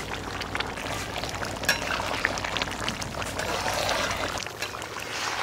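Potatoes and spiced chopped banana stem cooking in a pan, a steady sizzling, bubbling noise with scattered small clicks.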